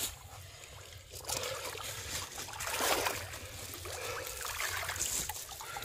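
Shallow water splashing and dripping in a few irregular bursts as fish and a wet net bag are handled, over a low wind rumble on the microphone.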